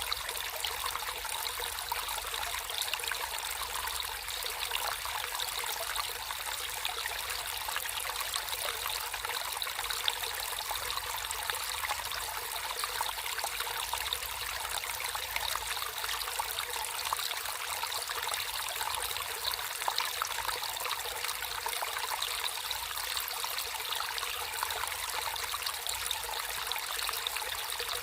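Water flowing and trickling in a natural stream, a steady splashing babble with fine, irregular droplet sounds.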